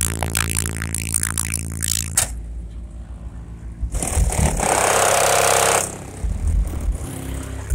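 Bass-heavy music through a car's two 18-inch subwoofers, deep sustained bass notes filling the cabin for about two seconds before dropping away. About four seconds in comes a loud, harsh scraping noise lasting about two seconds, followed by a few low bass thumps.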